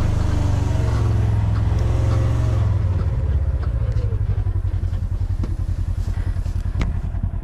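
A vehicle engine running as it drives over rough pasture. About three seconds in, the engine note drops and turns into a fast pulsing beat.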